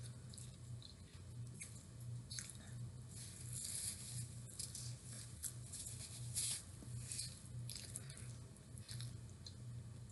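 Faint, wet chewing of food with the mouth closed: soft, irregular squishy mouth sounds over a steady low hum.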